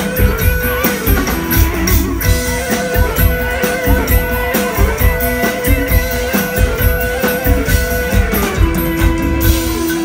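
Live rock band playing an instrumental passage: electric guitar holding long sustained notes over a steady drum-kit beat.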